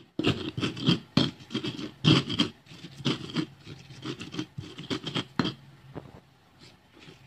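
Stone pestle grinding and scraping chilies, garlic and shallot against a stone mortar (cobek, ulekan) to make sambal. It is a run of short, uneven grinding strokes, about three a second, which fade to quieter scraping in the last second or so.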